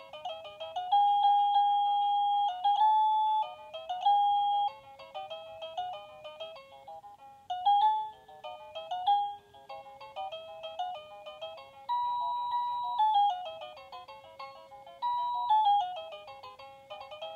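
Baby Einstein star toy playing a simple electronic tune through its small speaker: single beeping notes one at a time, a few held for about a second.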